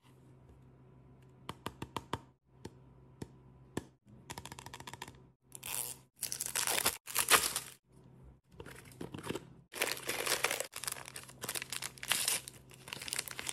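Hands unwrapping a Barbie Color Reveal doll tube: a few sharp clicks and taps on the plastic packaging, then repeated tearing and crinkling as the tube's wrapping and a small printed mystery bag are torn open.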